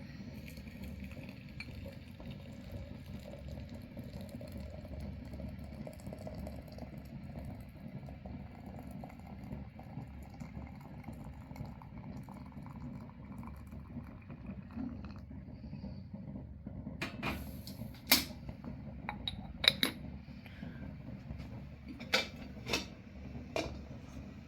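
Dishes clinking: about seven sharp, short clinks in the last third, over a steady low rumble of background noise.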